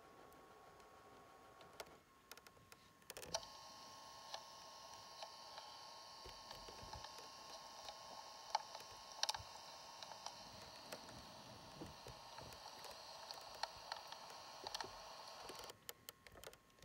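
Faint clicks and taps of a camera being handled and adjusted. Under them runs a steady faint hiss with a thin hum, which comes in about three seconds in and cuts off shortly before the end.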